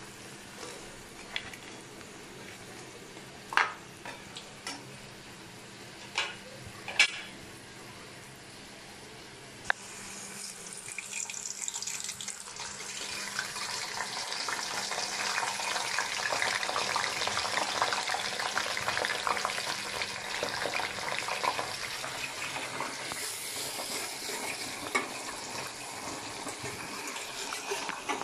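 A few sharp clinks of a metal ladle against a steel kadai. Then, from about ten seconds in, hot oil starts sizzling loudly and keeps on steadily as battered food deep-fries in it.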